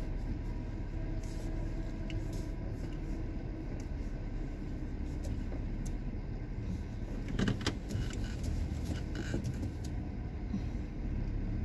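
Car driving slowly, its steady low engine and road rumble heard from inside the cabin, with a few sharp clicks about seven and a half seconds in.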